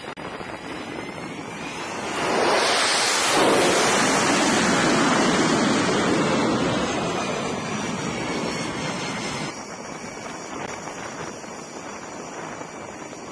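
Jet engine noise from an F/A-18 Super Hornet on a carrier flight deck: a loud rush that swells about two seconds in, holds for several seconds and then eases off. It drops suddenly to a quieter steady rush of wind and deck noise.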